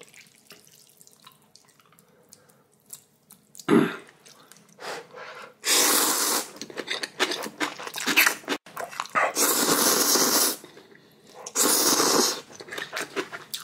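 A person slurping spicy ramyeon noodles: after a quiet start, three loud slurps of about a second each, with chewing and small mouth clicks between them.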